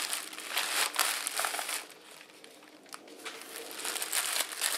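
Plastic bags crinkling as they are handled and opened by hand, with a short lull about two seconds in before the crinkling starts again.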